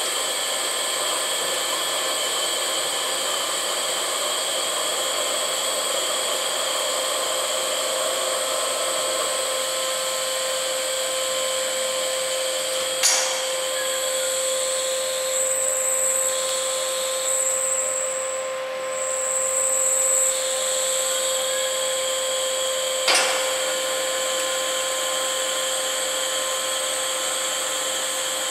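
Electric drive of a 3-tonne welding positioner running its table round, a steady motor-and-gearbox whine with several constant high tones. About halfway through a sharp click comes and the whine changes for roughly ten seconds, until a second click brings the first sound back.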